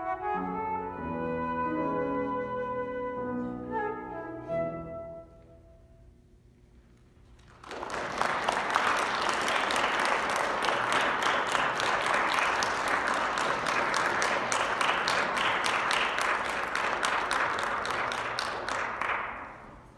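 Flute and piano play the closing notes of the movement, which ring and fade away over the first few seconds. After a short quiet, audience applause starts about eight seconds in and stops shortly before the end.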